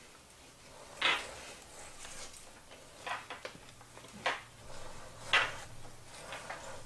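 Spatula scraping chocolate buttercream from a stainless steel mixing bowl and spreading it on a cake, with about four sharp scrapes and clinks of the blade against the bowl.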